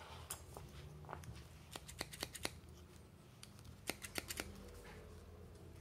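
Steel utility scissors handled and worked open and shut, giving a run of faint, short metallic clicks, bunched about two seconds in and again about four seconds in.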